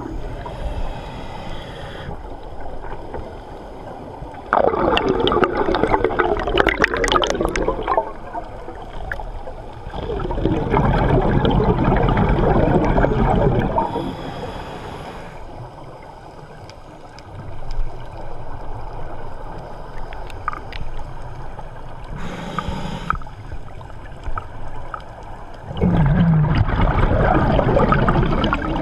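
A scuba diver's regulator breathing underwater: exhaled bubbles gurgle out in three long bursts of a few seconds each, with short hisses of inhaling through the regulator between them.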